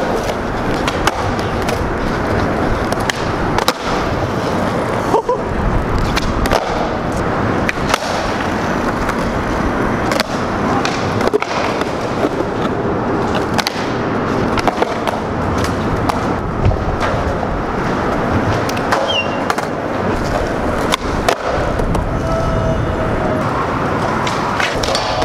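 Skateboard wheels rolling over concrete, steady throughout, with repeated sharp clacks and knocks of the board: tail pops and landings.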